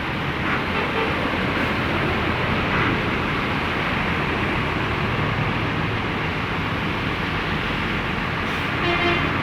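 Road traffic rumbling steadily past, with heavy-vehicle engine and tyre noise. A short horn toot sounds near the end.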